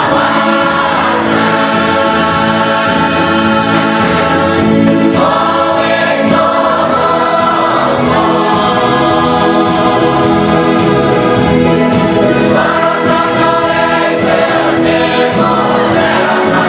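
Church choir of women and men singing a hymn together, long held notes shifting every second or two.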